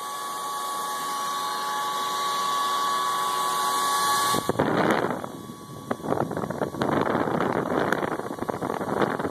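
A high-powered 12-volt Delta brushless computer fan running at full speed: a steady high whine over rushing air. About halfway through the whine drops out and turns into rough, crackling buffeting as the fan's airflow hits the microphone.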